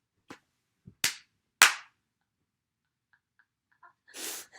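A few sharp smacks, the two loudest about a second and a second and a half in, followed by faint light ticks and a brief hiss near the end.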